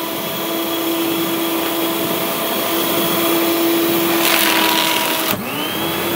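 Ofitech OS808-9M micro-cut paper shredder's motor running with a steady hum. About four seconds in, the cutters chew into a sheet of paper with a rough crunching. About a second later the motor cuts out and winds back up as it is switched to reverse, which stops the cutting.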